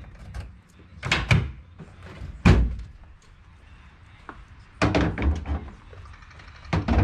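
A series of knocks and thumps in four separate clusters; the loudest is a single heavy thump about two and a half seconds in.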